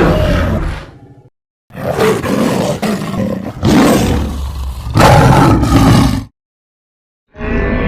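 A creature-roar sound effect: one long, rough roar of about four and a half seconds that swells several times and is loudest near its end. The tail of an earlier sound fades in the first second, and a new sound starts just before the end.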